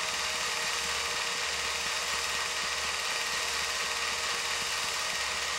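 Film projector running: a steady mechanical whirr with hiss and a low hum.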